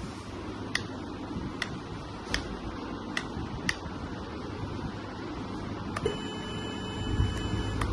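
Metal 1/14-scale RC hydraulic bulldozer model, heard as a steady low hum with five sharp clicks in the first few seconds. About six seconds in a steady electronic tone starts, and a louder low rumble builds near the end.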